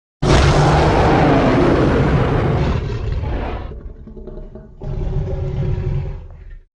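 Two stock animal-roar sound effects played back to back: a long, loud roar that starts suddenly and fades out, then a shorter, more tonal roar that cuts off abruptly.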